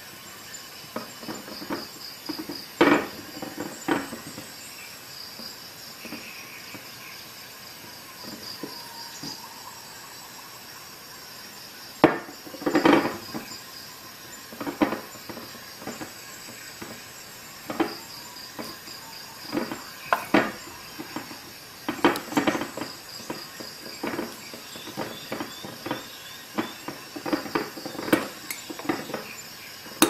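Leatherman Juice multitool's corkscrew being twisted into a wine bottle's cork, giving irregular small metal clicks and knocks as the tool is turned and shifted against the glass neck.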